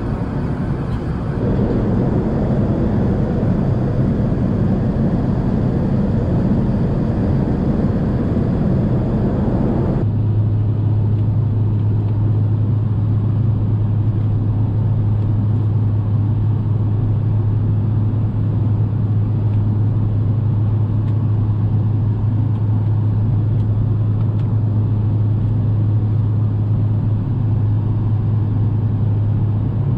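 Airbus A380 cabin noise in cruise: a steady rush of air and engine noise. About ten seconds in it changes abruptly to a duller sound with less hiss and a strong, steady low hum.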